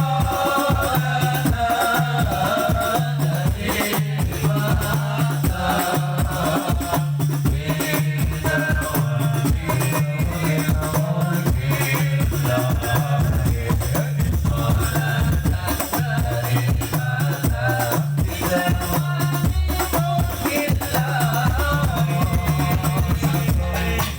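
A man singing a wavering devotional melody over musical accompaniment with a steady bass line and regular rhythmic percussion.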